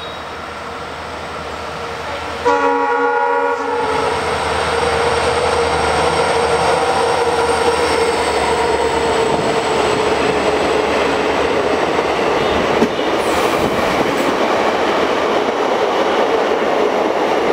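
WDG4 diesel locomotive running through the station, sounding one horn blast of about a second as it nears. Its express coaches then run past at speed with a steady loud rumble and clickety-clack of wheels over rail joints.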